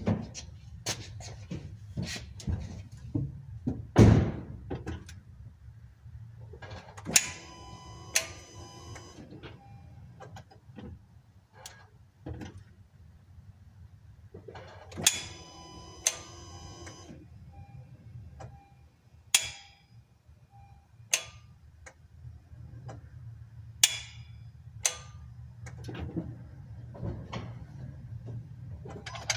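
2014 Honda Accord starter solenoid clicking over and over as the start is tried, with the starter motor not engaging; the mechanic takes it for a solenoid hanging up. A heavy thump about four seconds in is the loudest sound, and there are two short stretches of a ringing tone.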